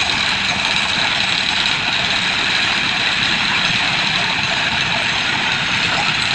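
An engine running steadily, with a dense, even noise and no change in speed.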